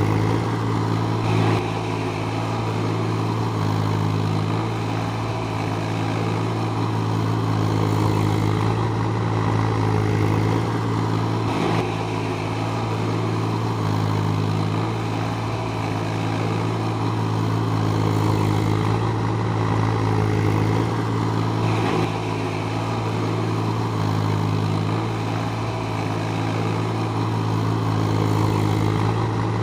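Diesel engine of a JCB 30 Plus mini excavator running steadily at an even speed, with a few slight dips in level.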